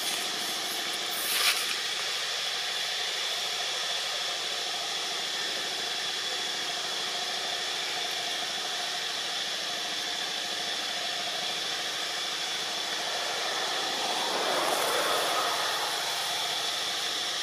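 Steady buzzing hiss of an insect chorus, holding a constant high tone. There is a brief sharp sound about a second and a half in, and a lower sound swells and fades near the end.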